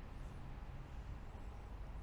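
Steady city ambience: a low rumble of distant traffic with an even background hiss, and a few faint high chirps.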